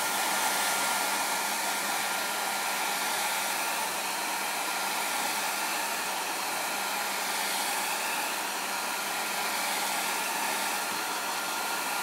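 Vidal Sassoon handheld hair dryer running steadily at close range over a bare phone circuit board, drying out the last moisture from a water-damaged board. An even rush of air with a thin steady whine over it.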